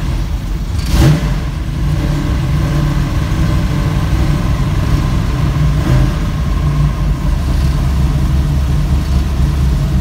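A 6.2-litre GM L99 V8 (LS3 family), just started, running steadily at idle. There is a brief sharp noise about a second in.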